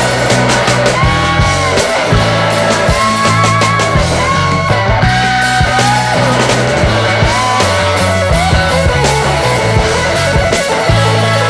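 Background rock music with electric guitar over a steady bass and drum beat.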